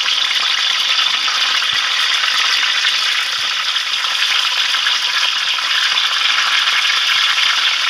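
Hot mustard oil sizzling steadily in a kadhai, with dried red chillies, bay leaves and garlic cloves frying in it.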